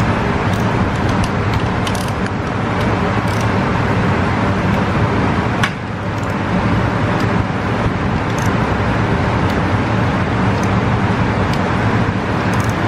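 A motor or engine running steadily and loudly, with scattered sharp clicks over it.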